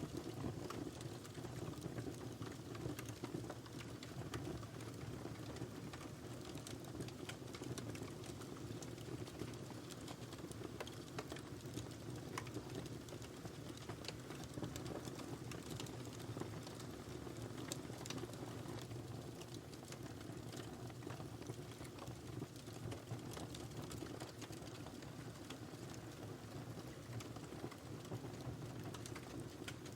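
Wood fire burning steadily in a fireplace, with a low rush of flame and many small irregular crackles and pops.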